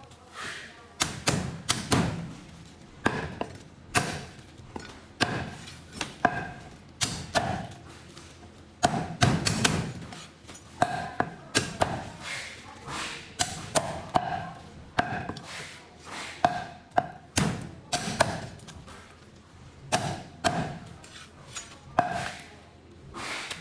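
Cleaver chopping braised goose on a chopping block: irregular sharp chops, sometimes in quick runs of several.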